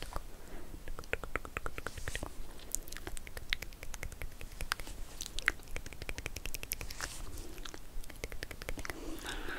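Close-up crisp crackling and clicking in quick runs of small clicks, an ASMR trigger sound.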